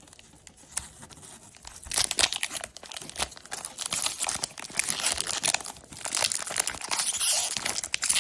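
Foil Pokémon TCG booster pack wrapper being torn open and crinkled in the hands: quiet for about two seconds, then dense crackling and tearing that grows louder through the rest.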